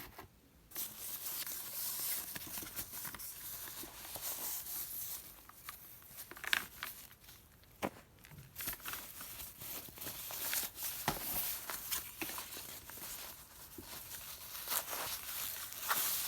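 Packaging being handled: continuous rustling and crinkling, with scattered sharp clicks and knocks, starting about half a second in.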